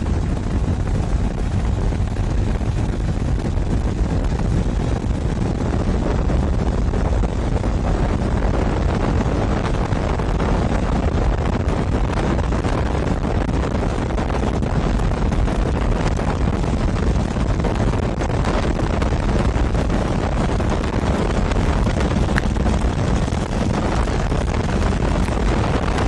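Royal Enfield Bullet motorcycle riding steadily at road speed: its single-cylinder engine running under wind rushing over the microphone, a loud, even noise heaviest in the low end.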